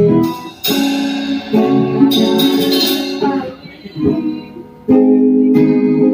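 Guitar strumming chords in a short instrumental passage between sung lines, with a brief lull about four seconds in before the next strummed chord.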